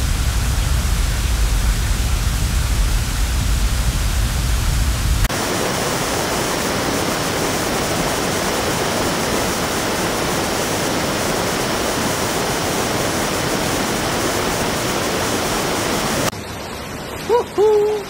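Rushing floodwater and heavy rain, a steady, loud noise. About five seconds in it changes abruptly from a deep rumble to an even hiss, and near the end it drops quieter.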